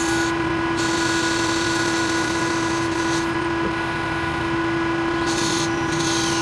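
Metal lathe running with a steady motor whine as a carbide insert tool turns the outside of a round metal workpiece, throwing curled chips. The high cutting hiss drops out twice.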